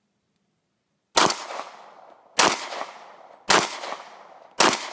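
Semi-automatic pistol firing four shots about a second apart, the first about a second in, each shot trailing off in a short echo.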